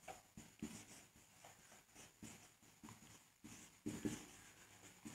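Near silence: room tone with a few faint taps of writing, two early and a pair near the end.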